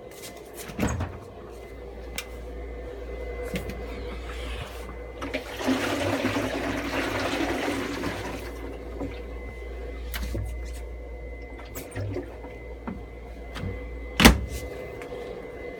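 Chamberlain half-horsepower chain-drive garage door opener running to close the door, a steady hum with a rushing noise for about three seconds midway. A sharp bang near the end is the loudest sound.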